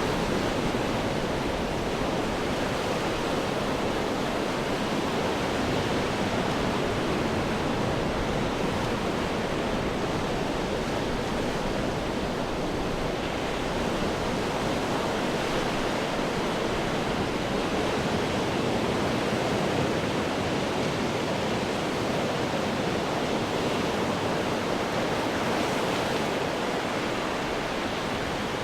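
Ocean surf washing against rocks, a steady rush of water noise that swells and eases only slightly, with no single wave standing out.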